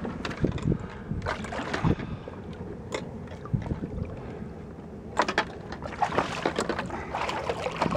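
Water sloshing and splashing against the side of a small boat, with scattered sharp knocks and clicks of gear being handled while a halibut is unhooked at the waterline.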